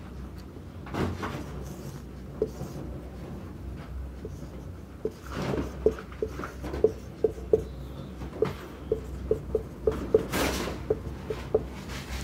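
Marker writing on a whiteboard: a run of short squeaky strokes, about two a second, through the second half, with a few brief louder swishes.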